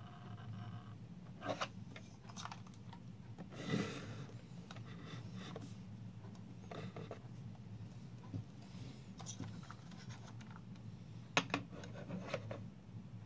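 Hands handling a plastic model DeLorean on its magnetic levitation base: scattered scrapes, taps and clicks as the car is moved and positioned, with the sharpest knocks about four seconds in and near eleven seconds, over a steady low hum.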